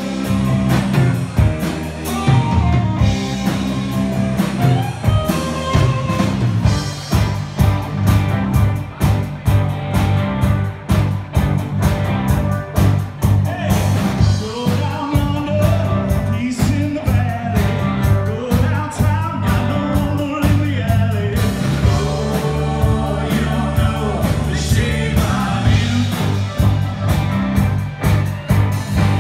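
Live rock band playing loud through a bar PA: electric guitars and a drum kit driving a steady rock beat, with a male lead vocal singing over it.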